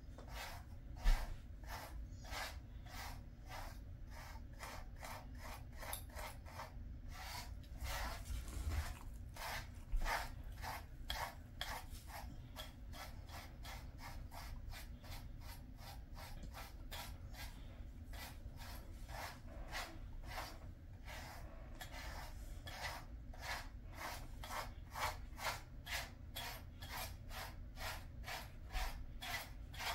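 Pet grooming brush drawn again and again through a Jindo dog's coat, one short brushing stroke after another, about two to three a second.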